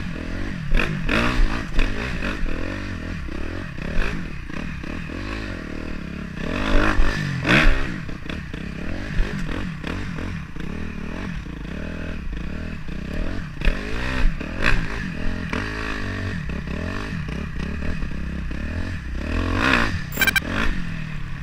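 Dirt bike engine revving up and down again and again as it is ridden around a rutted dirt track, heard from the rider's helmet. Several sharp knocks and clatter cut in along the way.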